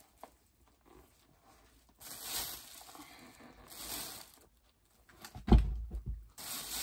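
Rustling and crinkling as shopping purchases and their packaging are handled, in a few stretches, with one dull, heavy thump about five and a half seconds in.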